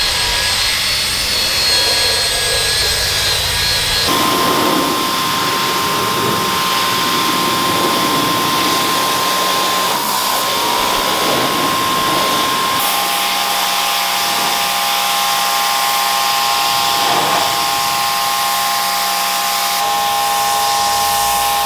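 Power cleaning tools working a soaked, foamed car carpet: a drill-driven scrub brush spinning, then a pressure washer spraying it down. The steady whine shifts pitch a few times.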